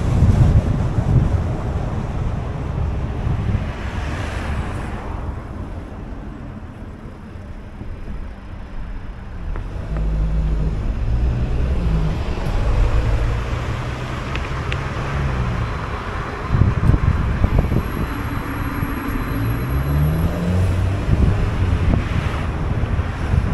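Car driving through city streets: engine running under tyre and road noise, with wind buffeting the microphone. The engine note climbs in steps twice as the car pulls away and accelerates.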